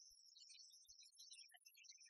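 Near silence: only faint scattered high-pitched blips and a few soft low thumps, with no engine or other machine sound.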